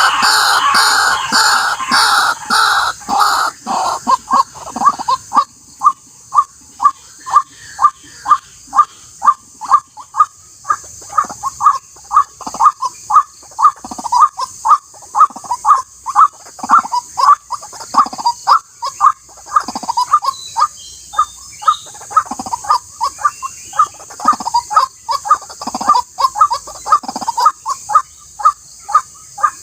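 White-breasted waterhen (ruak-ruak) calling, a short harsh note repeated about twice a second; the calls come thicker and louder in the first few seconds. A steady high hiss runs underneath.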